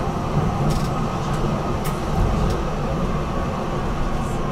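BN GTL8 tram running with a steady low rumble of wheels and running gear on the rails. A few short, sharp clicks sound through it.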